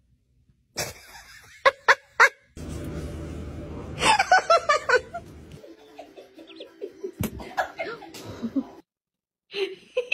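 A person laughing in a quick run of bursts about four seconds in, after a few sharp clicks.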